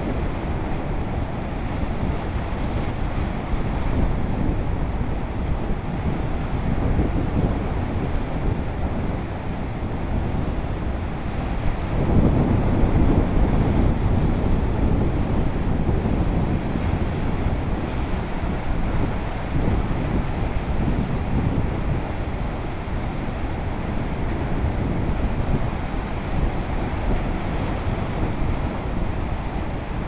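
Ocean surf: waves breaking and washing in, a continuous rush with a louder wave about twelve seconds in.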